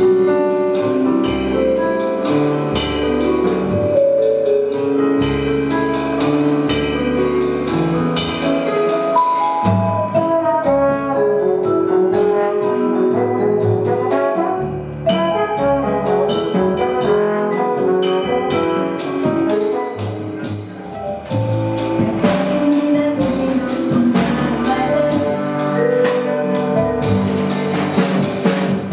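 Small jazz band playing live, with trombone over vibraphone, double bass, drums and piano.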